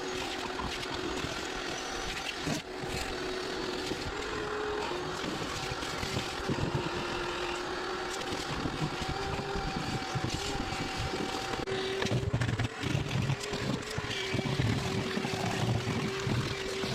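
Vacuum cleaner running with a steady motor tone that shifts slightly in pitch now and then, as when the nozzle is worked over a surface; more knocking and rumbling in the last few seconds.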